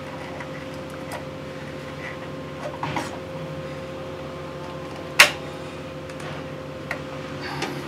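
Light clicks and knocks of parts being handled during engine reassembly, with one sharp click about five seconds in, over a steady low hum.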